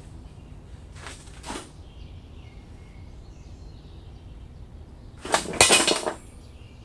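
Steel drive shaft of a Stihl FS90R string trimmer sliding into its drive tube: a short scrape about a second in, then a louder metallic rattling scrape of under a second near the end.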